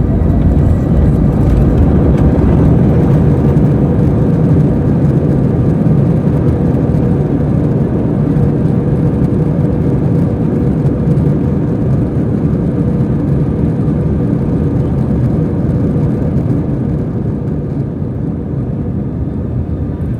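Cabin noise inside an Airbus A321 during landing: a loud, steady rumble of engines and rushing air that slowly dies down as the aircraft slows.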